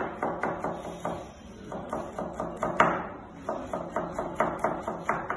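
Kitchen knife chopping carrot on a plastic cutting board: quick knife strikes against the board, about five a second, in three runs broken by short pauses, with one louder strike near the middle.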